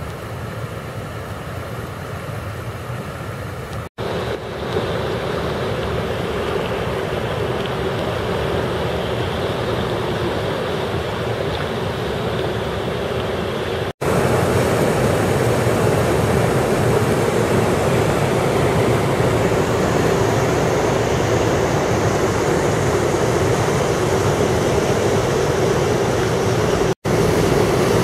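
Fast, churning flash-flood water in an overflowing creek, a steady rushing noise with no speech. It breaks off for an instant three times and is louder in the second half, where the water pours out of concrete culverts and races down a rock-lined channel.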